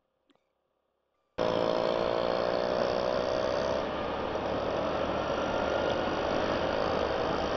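Two-wheeler engine running steadily while riding, under a broad rush of noise; it cuts in suddenly about a second and a half in, after near silence.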